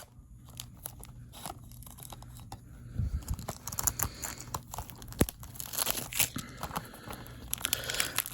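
Plastic wrapping being torn and crinkled off a DVD box set. It starts with a few scattered clicks, then turns to steady crackling and tearing from about three seconds in.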